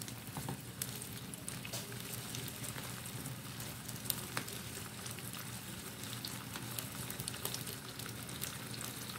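Pan of vegetables and dried fish in broth boiling on the stove: a steady soft bubbling hiss with scattered small pops and ticks.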